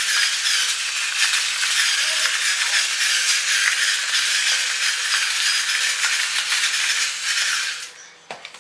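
Battery-powered electric salt and pepper grinder running, a steady grinding that cuts off abruptly near the end.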